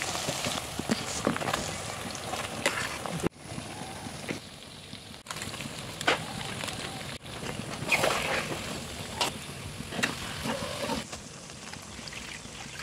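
Food sizzling and bubbling in a black iron wok, with intermittent clicks and scrapes of a spoon stirring. The sound shifts abruptly a few times as separate cooking clips are cut together.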